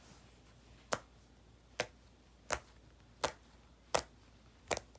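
Silicone pop-it fidget toy being popped bubble by bubble, a short sharp pop about every three quarters of a second, six in all.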